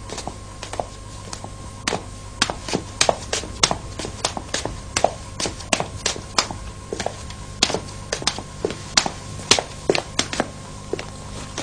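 A quick irregular run of sharp taps and knocks, two or three a second, busiest in the middle, over a low steady hum.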